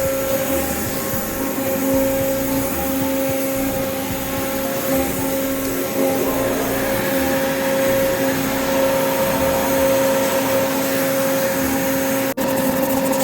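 Milling machine running steadily with a constant whine and hiss, drilling mounting holes into a sand-cast throttle linkage. The sound drops out briefly near the end.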